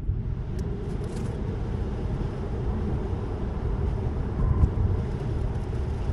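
Tyre and road noise of a Tesla electric car on wet pavement, heard inside the cabin as a steady rushing hiss with a low rumble. It jumps up at the start and then grows slowly louder.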